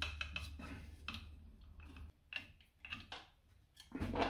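Light clicks and taps of the servo motor being handled and settled on its mount on the mill's belt housing, with a short louder handling noise near the end.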